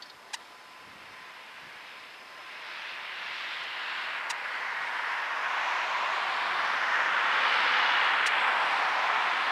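Boeing 777's twin jet engines at takeoff thrust, heard from a distance: a rushing roar that grows steadily louder as the airliner accelerates down the runway toward liftoff.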